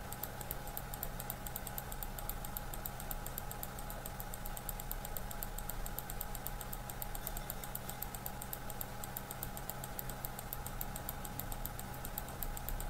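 Low steady electrical hum and hiss of a recording setup, with a fast, even ticking running under it; no explosion sound is heard.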